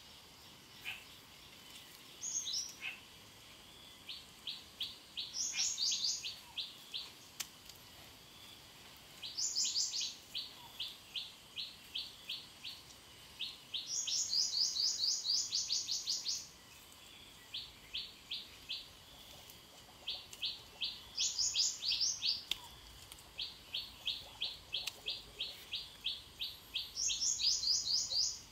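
A bird singing: runs of quick, high chirps at about five notes a second, broken every few seconds by a brighter burst of higher notes.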